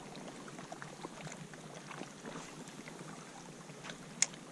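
Small waves lapping faintly against the rocky lakeshore, with scattered small ticks and one sharp click about four seconds in.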